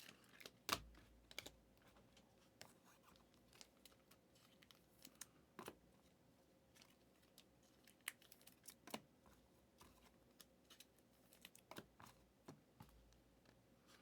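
Faint, irregular clicks and taps of small hand-handling sounds, the loudest about a second in.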